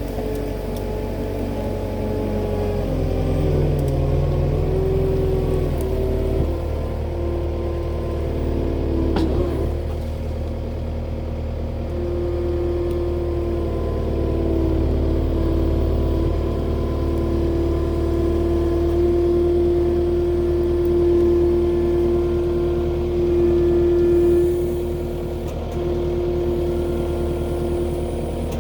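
A vehicle engine running steadily while driving, with a steady whine that settles in about a third of the way through.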